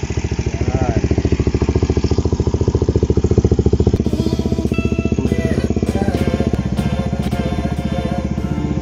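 Kawasaki Ninja 250SL's single-cylinder four-stroke engine idling steadily, freshly started, through an aftermarket slip-on muffler.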